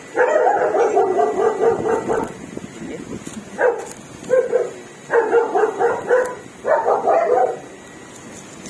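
A dog barking in quick runs: a burst of about two seconds, then several shorter bursts.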